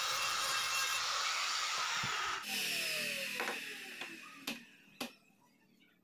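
Handheld trim router cutting a handle recess in a board through a template, running at full speed with a steady high whine, then switched off about two and a half seconds in and winding down with a falling pitch. Two sharp knocks follow near the end.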